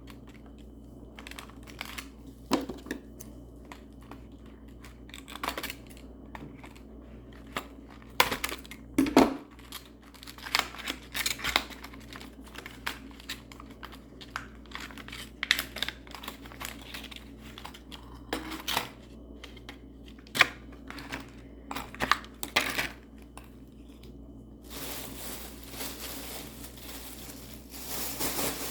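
Fidget toy packaging being worked open by hand: irregular crinkling, tearing and sharp clicks and knocks, turning into a steadier rustle near the end.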